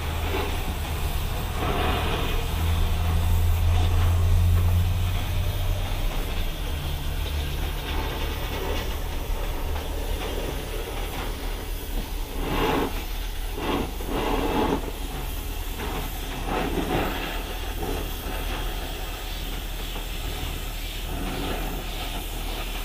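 Gas torch burning with a steady hissing roar over a low hum, the heat source for a new starter ring gear. A few short clatters of metal come about halfway through as the hot ring is handled.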